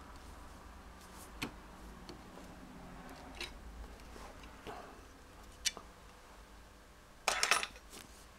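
Circlip pliers working a large steel circlip off a BMW ignition trigger housing: a few faint metal clicks, then a short rattle of louder metallic clicks about seven seconds in as the clip comes free.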